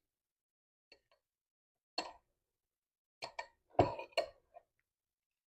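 Sharp clinks of a utensil against a dish while passion fruit is being cut open. A faint tap comes about a second in, then a clink at two seconds, then a quick run of four or five clinks between about three and four and a half seconds in.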